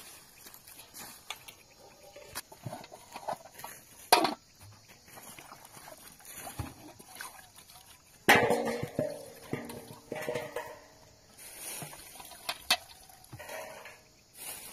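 Metal cooking pots and a pan knocking and clanking as they are handled, with scattered clicks and a louder clank about four seconds in. The loudest is a sudden clang with a short ringing tail about eight seconds in.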